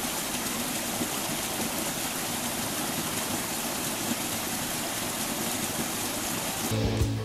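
Small woodland stream pouring over a short drop into a pool: a steady rush of falling water. Music comes in just before the end.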